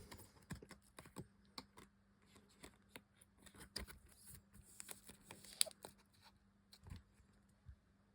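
Faint, irregular light clicks and small rustles of a trading card being slid into a plastic penny sleeve and a rigid plastic top loader, over a faint steady low hum.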